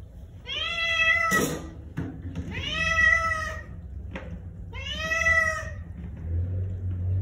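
Wet cat meowing three times while being bathed in a sink, each meow about a second long, rising then falling in pitch, roughly two seconds apart. A brief hiss about a second in.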